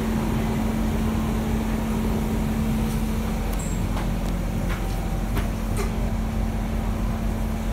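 Interior of a Siemens C651 metro train pulling away from a station platform: a steady electrical hum over low rumble, with a few sharp clicks and rattles about halfway through.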